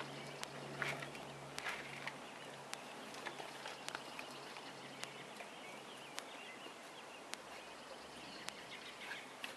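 Faint outdoor ambience with a scatter of small sharp clicks and faint bird chirps. A low hum fades out about two seconds in.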